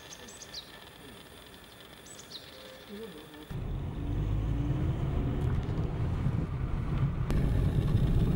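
A few high chirps, each falling in pitch, from birds over faint outdoor ambience. About three and a half seconds in, a car's steady low road-and-engine rumble comes in suddenly, heard from inside the cabin while driving.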